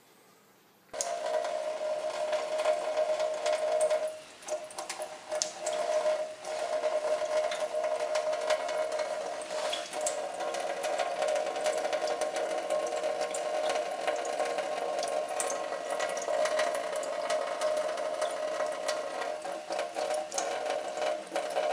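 Kitchen faucet running a thin stream into a stainless-steel sink, starting about a second in, with a steady hum under it and small splashes and taps as a cat paws at the water.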